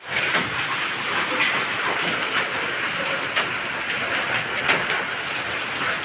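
Heavy downpour: a steady rush of rain with frequent sharp individual strikes on hard surfaces, as in a rain and hail storm.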